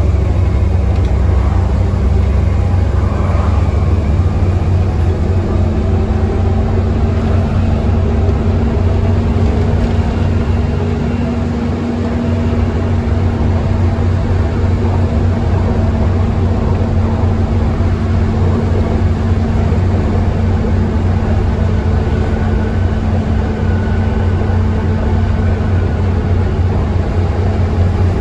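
Volvo B7TL double-decker bus's diesel engine running hard under load, heard from inside the lower deck: a loud, steady low drone with road noise, dipping briefly about twelve seconds in.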